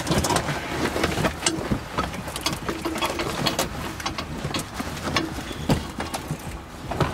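Car floor carpet with its felt underlay being pulled up and dragged out, rustling and scraping with an irregular run of crackles and knocks.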